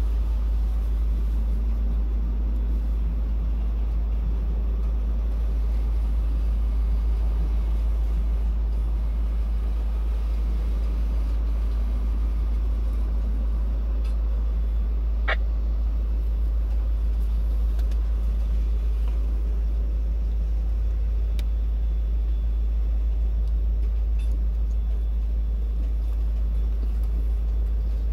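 Steady low rumble heard inside a car cabin as a mixed freight train's gondola cars roll slowly past, with one brief sharp squeak about halfway through.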